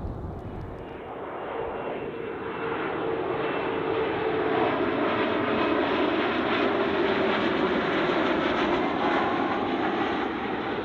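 Airliner on short final approach passing low overhead. Its engine noise builds over the first few seconds, holds loud with a steady whine, and eases slightly near the end.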